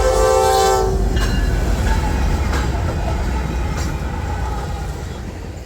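A train horn sounds a chord that cuts off about a second in, followed by the steady rumble of a passing train with a few clicks from the wheels and rails. The sound fades out at the end.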